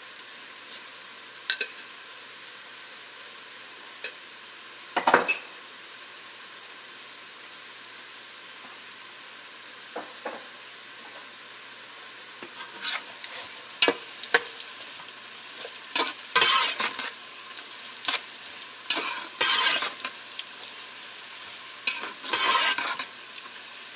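Onions and cumin seeds frying in oil in a pot, a steady sizzle. A spoon stirs and scrapes against the pot now and then, with a louder knock about five seconds in and frequent scraping in the second half.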